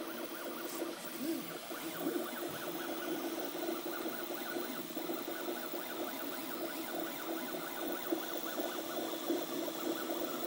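Desktop 3D printer printing: its stepper motors drive the print head in quick short moves, making a buzzing whine whose pitch keeps changing every fraction of a second.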